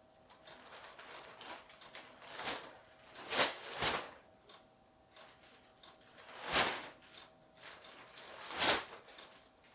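Diesel air heater's fuel pump ticking faintly, about once a second, while it pumps diesel during start-up. Five brief, louder rushing noises come through, the loudest about a third of the way in and again near the end.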